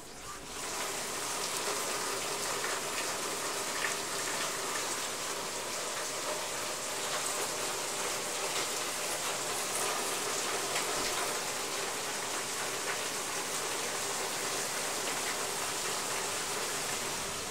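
Heavy rain pouring down in a torrential downpour: a dense, steady hiss that grows louder over the first second and then holds steady.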